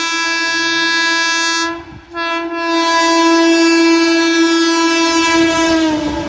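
Electric multiple-unit (EMU) local train's horn sounding two long, loud blasts as the train runs through the station at speed without stopping. The second blast drops slightly in pitch near the end as the train passes, and the rushing rumble of the wheels and carriages builds up under it.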